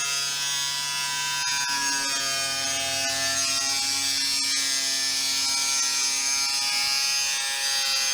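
A handheld power tool running continuously, a steady motor whine with a hiss over it that wanders slightly in pitch.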